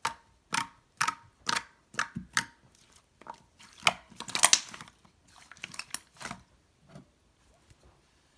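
Slime being pressed and worked by hand: a run of sharp wet pops about twice a second, then a denser crackly stretch about four seconds in, fading to softer squishes.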